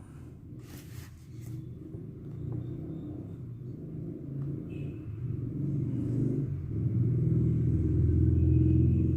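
A low engine-like rumble that grows steadily louder, like a motor vehicle running close by.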